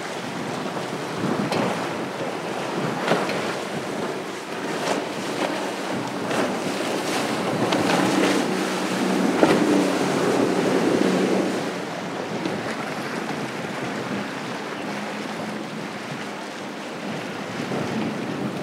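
Regulator center-console boat running at speed through choppy water on outboard power: a low engine hum under the rush of wake and spray, with sharp slaps of the hull on the chop and wind on the microphone. The engine hum grows about halfway through and fades in the last third.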